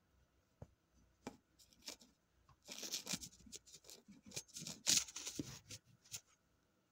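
A few sharp clicks, then a few seconds of close rustling and scraping with sharp crackles, loudest around the middle. It sounds like something being handled right next to the microphone.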